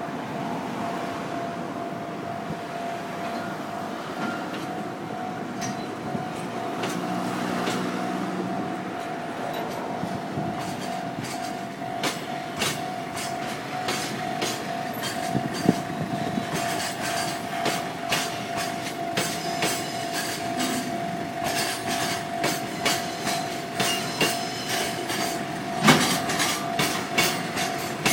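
A JR Freight train shunting slowly across the level crossing, its wagon wheels clacking over the rail joints in a rhythm that starts about a third of the way in and grows steadier and louder. A steady high tone sounds throughout.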